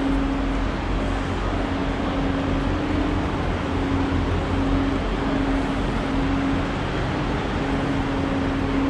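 Railway station ambience: a steady mechanical hum holding one constant low tone over an even rushing noise, unchanging throughout.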